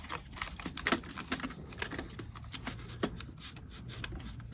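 Light, irregular clicks and taps of small hard plastic parts being handled, as the paper roll and printer parts of a small printer are lifted and fitted by hand.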